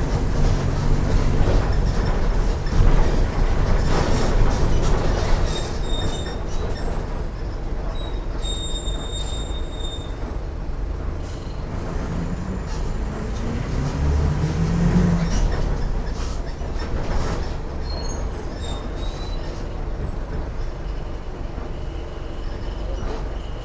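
Mercedes-Benz OF 1418 bus's diesel engine running under way, with the revs climbing about halfway through. Rattles and a few thin high squeaks come and go over it.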